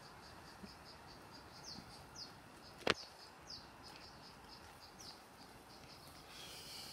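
Faint outdoor garden ambience: a steady series of short, high chirps, about three a second, with a few quick falling whistle notes among them. A single sharp click sounds about three seconds in.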